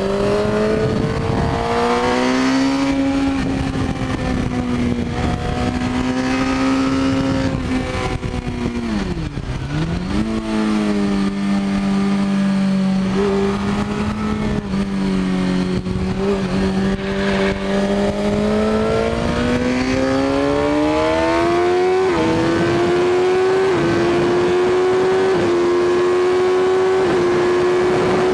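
Suzuki GSX-R K6 inline-four engine heard onboard at track speed with wind rushing past. It holds steady revs through the bends and dips sharply in pitch around nine to ten seconds in. Near the end it pulls hard, with several quick upshifts, each a brief step in pitch.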